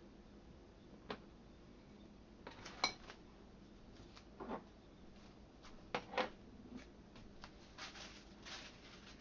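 Scattered kitchen handling sounds: light clinks and knocks of containers and utensils being set down and moved. The sharpest is a clink with a short ring about three seconds in, and a quick pair of knocks comes about six seconds in.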